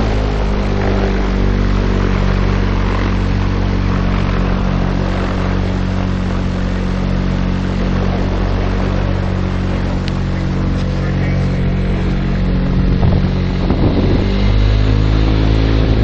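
Light sport aircraft's piston engine running at a steady speed, heard from inside the open cockpit over a noisy rush of air. A few short rattles sound about thirteen seconds in.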